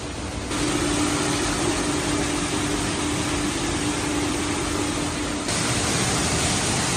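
Industrial crate washing machine running: a steady hiss of spraying water over a constant motor or pump hum. The hiss grows louder about half a second in and again near the end.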